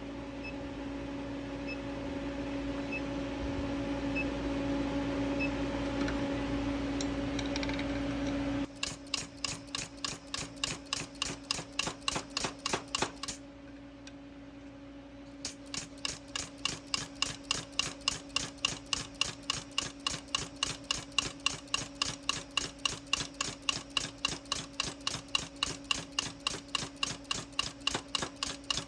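Induction forge humming steadily as it heats the thin steel tube. About nine seconds in, a power hammer's upper die starts striking the tube on the lower die in a fast, even run of blows, about four a second, deepening the grooves. The blows pause for about two seconds midway, then resume.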